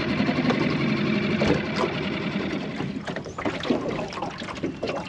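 A crab trap being hauled up by its rope over the side of a small aluminium boat, with water splashing and dripping in many short sharp sounds from about three seconds in, over a steady low hum.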